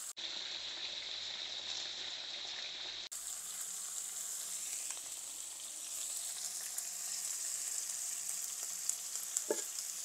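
Sliced onions and green chillies frying in oil in a small pan, a steady sizzle, with a few light clicks of a spoon against the pan near the end.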